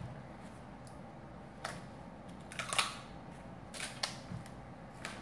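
Duct tape being pulled and torn by hand: several short, faint crackling rips, the loudest about halfway through.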